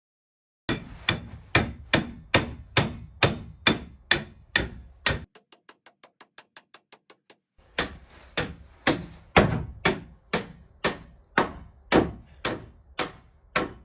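Hammer blows driving stakes to anchor a greenhouse: steady, evenly spaced strikes about two a second. Around the middle they give way to lighter, quicker taps, then the heavy blows resume.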